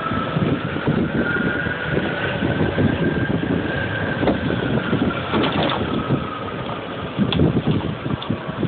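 DBX electric motorcycle being ridden: steady rumbling road and wind noise with a faint motor whine that rises slightly and then falls back.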